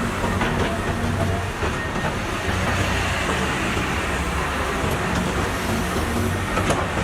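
Caterpillar 320 excavator's diesel engine running steadily, with a few sharp metal clanks.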